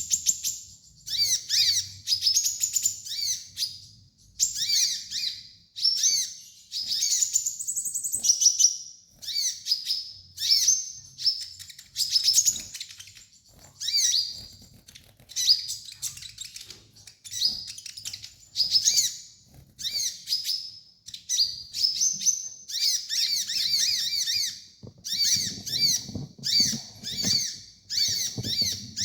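Olive-backed sunbird singing: short bursts of rapid, high, thin chirps and twitters, one after another with brief gaps.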